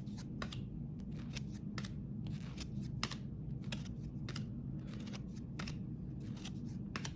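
Basketball trading cards being flipped and slid one after another: a run of small, irregular clicks and swishes over a steady low hum.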